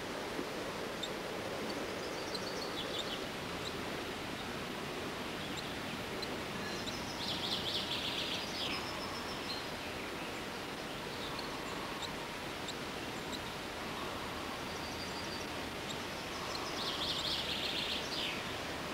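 A songbird singing short, quick trilled phrases that fall in pitch, three times, about two, seven and sixteen seconds in, over a steady outdoor background hiss.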